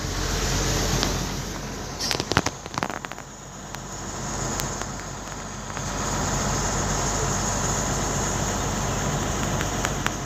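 Steady low vehicle rumble. About two seconds in comes a burst of sharp knocks and clatter as the truck's cab door is handled and someone climbs into the cab.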